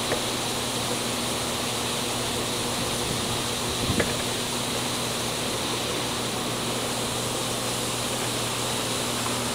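Steady background hiss with a faint low hum, with a light click just after the start and a couple of soft knocks about four seconds in.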